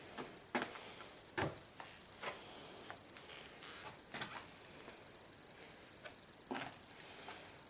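Scattered knocks and clicks at irregular intervals, five or six in all, the sharpest about half a second and a second and a half in.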